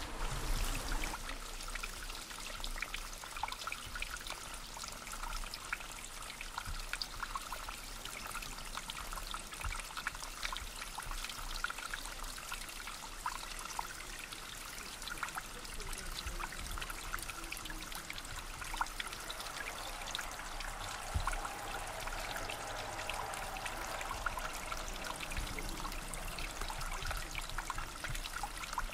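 Small spring brook at the source of the Ruhr trickling and splashing steadily, a continuous babble scattered with many small drips.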